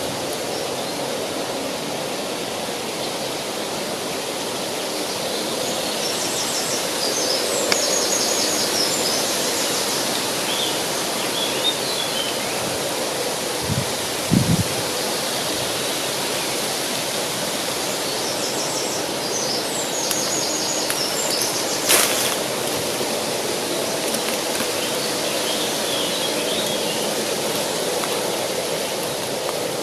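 A river flowing steadily, with small birds giving short high chirps twice and a few softer chirps. A couple of low knocks about halfway through and a sharp click a little later.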